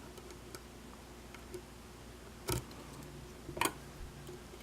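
Lock pick working the pins of a pin-tumbler lock under tension: faint scattered ticks, with two louder sharp clicks about two and a half and three and a half seconds in.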